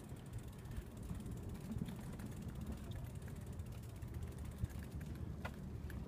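Bicycle rolling along a plank boardwalk: the tyres rumble over the deck boards while the rear freewheel ticks rapidly as the bike coasts. There is a single sharp click near the end.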